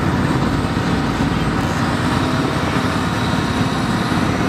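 Engines of slow-moving parade vehicles, a side-by-side utility vehicle passing close by, over a steady din of street traffic.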